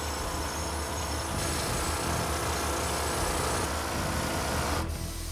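Hand-held pneumatic rock drill boring into heavily reinforced concrete, running steadily and loudly; its high hiss drops away near the end while the low rumble carries on.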